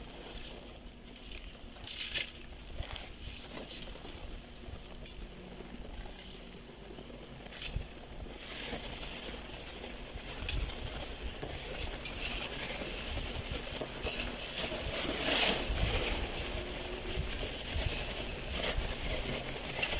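Dried ginger pieces pouring from a plastic bag into a metal grinder hopper: a pattering rustle that grows from about eight seconds in, with the plastic bag crinkling.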